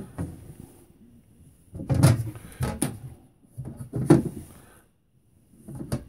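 Sink cover boards being handled and set back down on a camper's kitchen sink, giving a few hard clacks and knocks a second or so apart.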